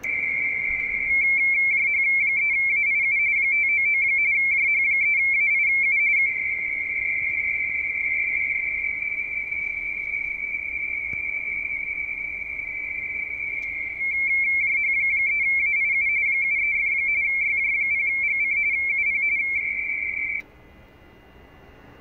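RTTY (radio-teletype) signal from an Icom IC-7600 transceiver: a high pair of tones close together, flipping rapidly between them as characters are sent, after about a second of one steady tone. It cuts off abruptly near the end.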